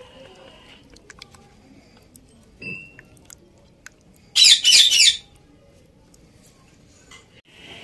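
A bird chirps in a quick, loud burst of high notes about halfway through, after a single short whistled note a little earlier. Soft stirring of yogurt in a plastic bowl is quieter underneath.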